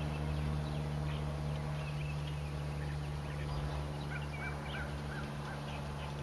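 A steady low hum with several overtones, with short bird chirps over it and a quick run of about six chirps around four seconds in.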